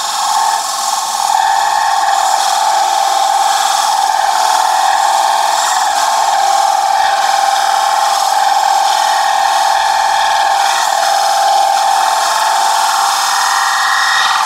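A beading tool scoring beads into a maple platter spinning on a wood lathe, making a loud, steady, shrill tone with overtones.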